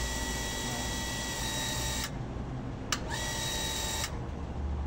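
Shimizu booster water pump running, a steady electric motor whine over a low hum. Its higher tone drops out briefly twice, with a sharp click between. The pump keeps running while the valves to the floors are open, the sign of a leak on one floor's line.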